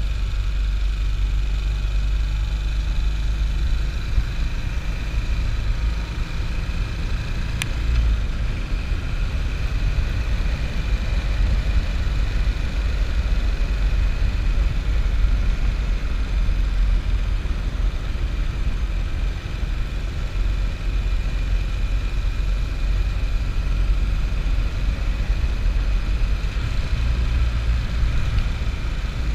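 Motorcycle engine running steadily under way, heard from the rider's seat as a deep, continuous rumble.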